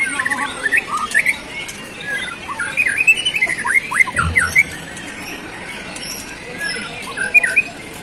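Caged songbirds chirping and calling in quick runs of short notes and down-slurred whistles, loudest about halfway through and again briefly near the end.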